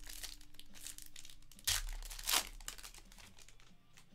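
Foil wrapper of a Panini Chronicles Draft basketball card pack crinkling as it is torn open by hand, with two sharper, louder rips near the middle.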